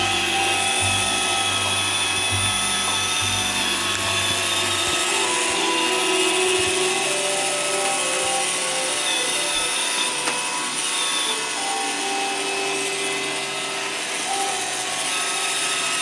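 iRobot Roomba 530 robot vacuum running: its vacuum and brush motors give a steady whine made of several tones that shift in pitch now and then as it drives. A low hum underneath drops away about five seconds in.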